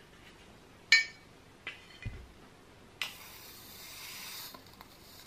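White ceramic oil burner and its bowl knocking together as they are handled: one sharp, ringing clink about a second in, then lighter knocks and a dull thud. About three seconds in comes a steady hiss lasting a second and a half.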